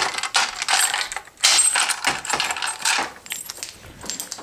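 Light metallic clinking and rattling: a quick run of small clicks, loudest about a second and a half in, then fading.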